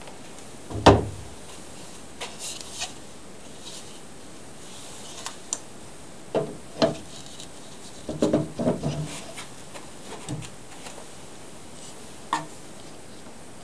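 Scattered knocks and clatters of wooden parts and a tool being handled and set down on a workbench top while a homemade jig is put together: one loud knock about a second in, a few more around six seconds, a quick cluster around eight to nine seconds, and one near the end.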